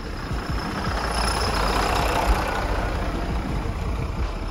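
Tsugaru Railway Tsugaru 21-type single-car diesel railcar passing close by. Its diesel engine rumbles under a rising rush of running noise that is loudest about two seconds in, then eases a little.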